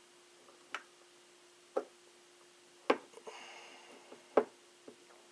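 Sharp metal clicks of steel M14 trigger-group parts as the hammer spring assembly is pressed into the trigger housing and held with a punch pin: four clicks about a second apart, the third the loudest, with a short scrape after it.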